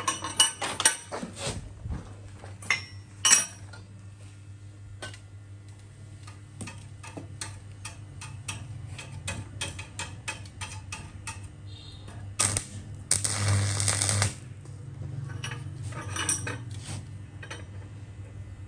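Metal clinking and knocking as pieces are handled, with a steady low hum underneath. A dense crackling burst of noise lasts about a second and a half near the two-thirds mark.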